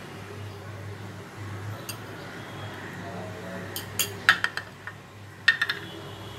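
A metal spoon clinking against a glass bowl: a few sharp clinks about four seconds in and another short cluster about a second later, over a low steady hum.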